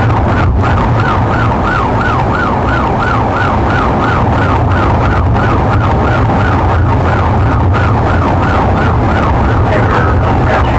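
Police car siren in fast yelp mode, rising and falling about three times a second, over the steady low rumble of a car's engine and tyres on the highway, heard from inside a pursuing patrol car.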